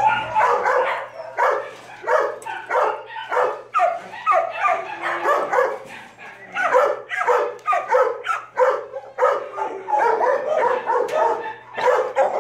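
Shelter dogs barking over and over, their barks overlapping with hardly a gap, over a faint steady low hum.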